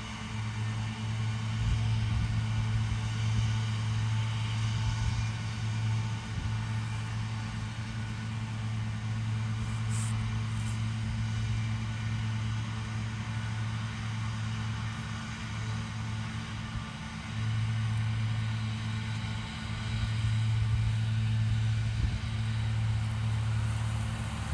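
Claas tractor running steadily at a distance while pulling a mower through grass, heard as a low, even hum.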